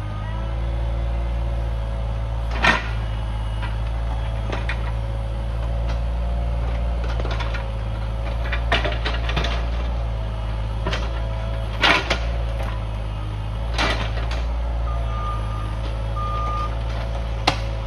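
Caterpillar mini excavator's diesel engine running steadily while the machine works rocks and brush, with sharp knocks and cracks every few seconds. Two short beeps sound near the end.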